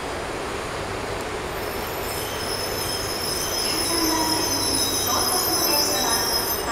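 E926 East-i Shinkansen inspection train rolling slowly alongside the platform with a steady rumble. A high-pitched, multi-tone squeal sets in about a second and a half in as it slows, and it grows a little louder in the second half.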